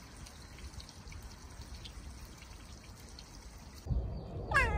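Trickling water with small faint drips, then about four and a half seconds in a cat gives a single meow that falls in pitch.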